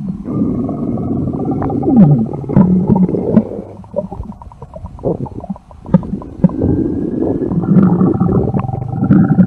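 Growling stomach sound effect: a long gurgling rumble with squeaky tones that glide up and down. It dips about halfway through and then swells again.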